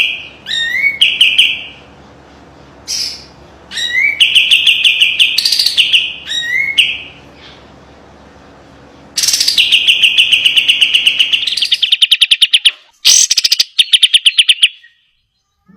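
Sooty-headed bulbul singing its sharp 'besetan' song: bursts of very fast, closely packed chattering notes, each burst opening with a short rising sweep. A longer unbroken run starts about nine seconds in and breaks into choppy fragments near the end.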